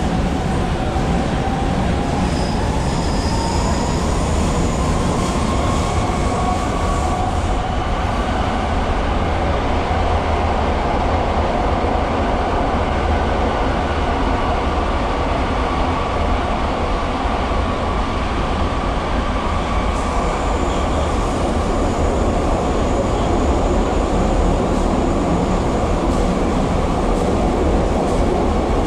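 Brussels Metro train running underground, heard from inside the passenger car: a steady rumble of wheels on rails. Over the first few seconds a whine rises in pitch, then holds steady as the train runs on.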